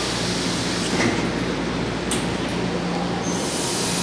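São Paulo Metro Frota I subway train running along the platform, a steady rumble of wheels on rail, with a faint click about one and two seconds in.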